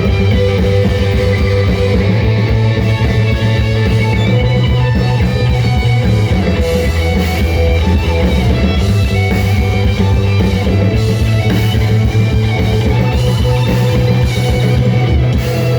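Rock music played by a band: distorted electric guitar over bass and drum kit, loud and steady.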